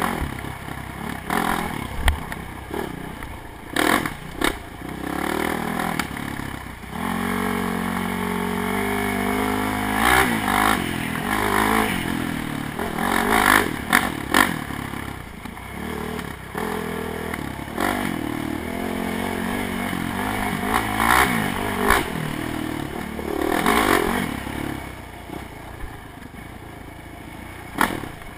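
ATV engine revving up and down as it is ridden hard over a rough dirt trail, its pitch rising and falling again and again. The machine rattles and knocks over the bumps.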